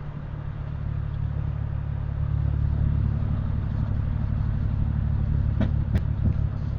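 1997 Dodge Ram 1500's 3.9-litre V6 running steadily and getting a little louder over the first couple of seconds; the engine is misfiring, with codes for random misfire and cylinders 2 and 3. A few short clicks near the end.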